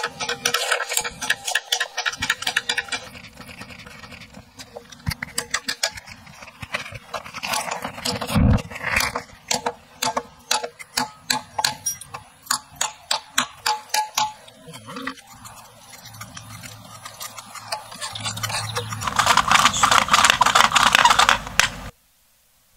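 Hammer tapping on a metal fitting at the end of a hand drill's wooden shaft clamped in a bench vise, settling into steady strikes about two a second. Near the end a louder rustling, scraping noise.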